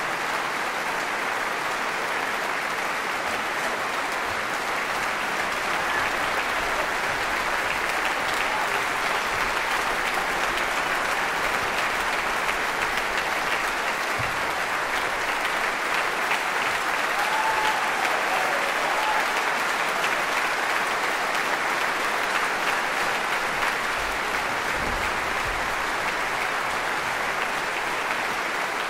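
A large concert-hall audience applauding steadily, swelling a little about halfway through.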